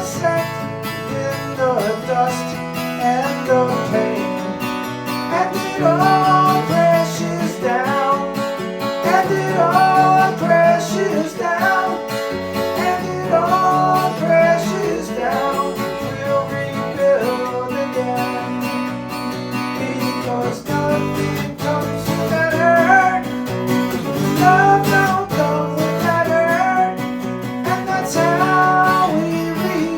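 Song with strummed acoustic guitar and a melodic lead line over a steady bass, in a country style.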